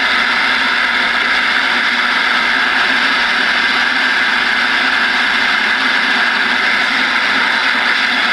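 Steady static hiss from a Galaxy DX-2517 10-meter radio's speaker: the receiver's open-channel noise, loud and unbroken.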